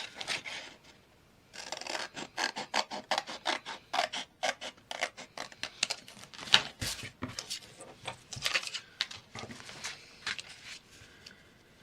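Scissors snipping through card and paper: a run of quick, irregular cuts with short pauses between runs.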